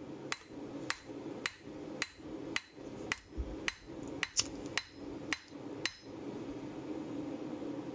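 Hand hammer striking a red-hot steel hardie blank held on the anvil: about eleven even blows, roughly two a second, stopping about six seconds in. The blows land just above the shoulders with a gap underneath, knocking the bent top back straight.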